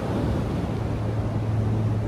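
Ocean surf and wind buffeting the microphone, with a steady low hum underneath that grows a little stronger in the second half.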